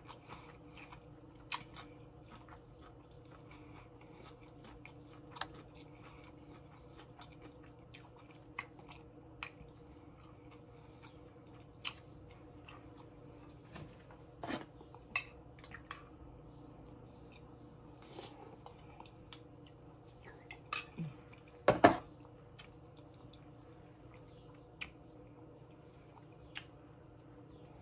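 Close-miked eating: chewing with scattered short clicks and taps of a fork on a plate, over a steady low hum. The loudest knocks come in a quick cluster about three-quarters of the way through.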